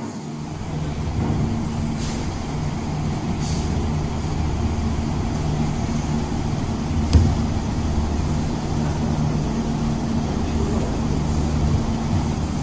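Steady low hum of running machinery, with a single sharp knock about seven seconds in.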